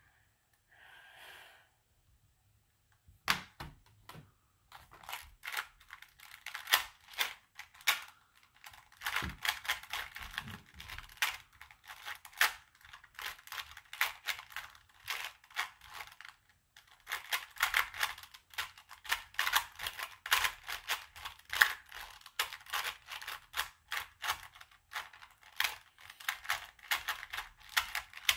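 A Rubik's brand 2x2 cube being turned rapidly in a speed solve: quick runs of plastic clicking and clacking as the layers snap round, with a brief pause about halfway through.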